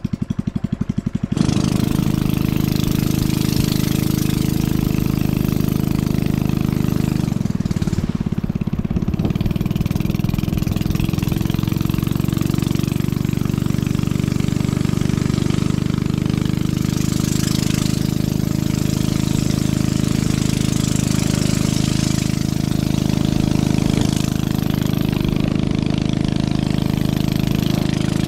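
A small engine ticking over at a pulsing idle, then opening up about a second in and running steadily at higher speed.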